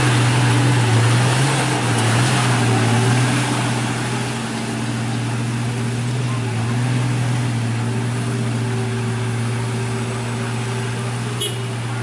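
Heavy diesel truck engine running in a steady low drone as it climbs, over a continuous hiss, with one short click near the end.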